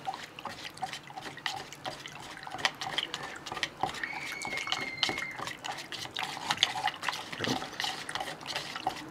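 A thin wooden stick stirring watery plaster in a plastic tub: quick light clicks and taps of the stick against the tub with liquid swishing. A brief high squeak sounds about four seconds in.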